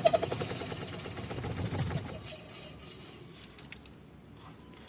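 Wash motor of a plastic twin-tub washing machine running down and fading away over about two seconds after the wash timer switches it off. A few light clicks come about three and a half seconds in.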